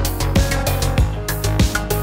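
Electronic background music with a steady beat of about three drum hits a second over deep held bass notes.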